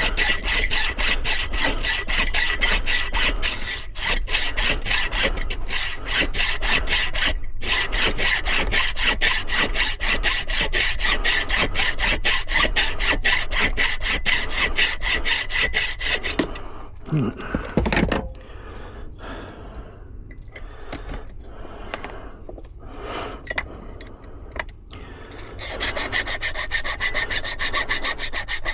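Hand saw cutting a metal key blank held in a vise: rapid, steady back-and-forth strokes. About 16 seconds in the strokes give way to lighter, irregular ones for several seconds, then the steady sawing resumes near the end.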